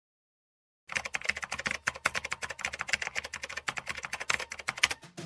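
Rapid computer-keyboard typing clicks, starting about a second in and running on until just before the end: a typing sound effect for text being typed out on screen.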